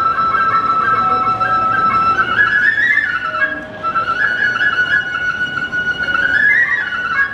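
Japanese bamboo kagura flute (fue) playing a solo melody: long held high notes with short rising flourishes, once near the middle and again near the end.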